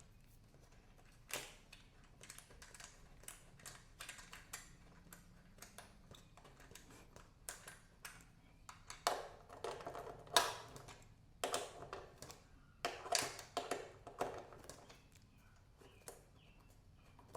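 Socket ratchet clicking in short runs, with light metal clinks, as bolts are loosened off a dirt bike's exhaust mounting.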